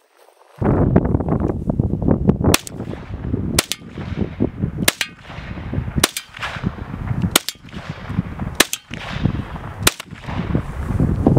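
Ruger LC Carbine in 5.7x28 mm fired at a steady pace: seven sharp shots, about one every second and a quarter, starting about two and a half seconds in. A steady low rumble of wind on the microphone runs under the shots from just after the start.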